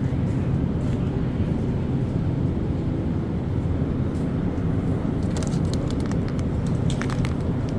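Steady low rumble of grocery-store background noise, with a few light clicks and rattles in the second half as items are handled.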